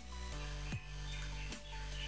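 Background music with a steady beat: a held bass line and a low thump about every 0.8 seconds.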